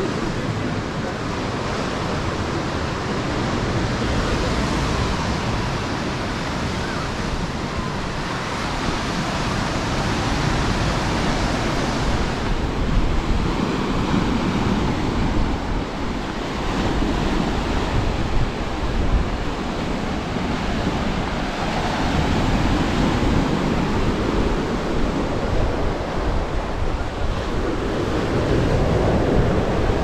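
Ocean surf breaking on the shore in slow surges that swell and ease every several seconds, with wind rumbling on the microphone.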